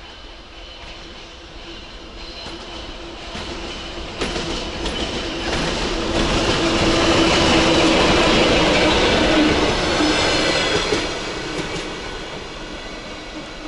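ChME3 diesel shunting locomotive with a catenary-measuring car passing by. It grows louder to a peak around the middle and fades toward the end, with a steady hum and wheel clicks over the rail joints.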